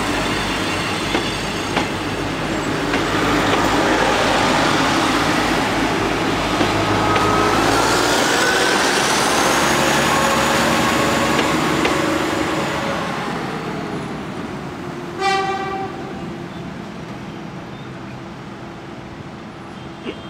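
Passenger coaches of the Argo Wilis train passing close by, their wheels rolling and clattering over the rail joints, with a faint rising squeal in the middle. The noise fades away after about 13 seconds, and a short horn toot sounds about 15 seconds in.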